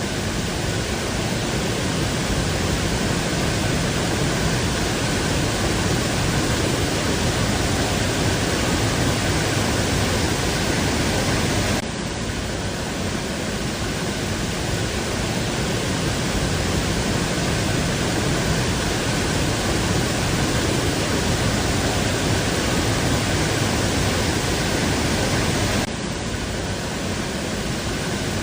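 Waterfall: a loud, steady rush of falling water, dropping slightly in level twice.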